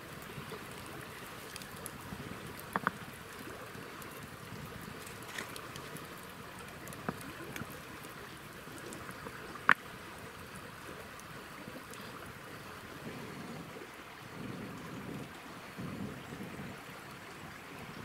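Wood campfire crackling with a few sharp pops, the loudest about ten seconds in, over a steady rush of running stream water.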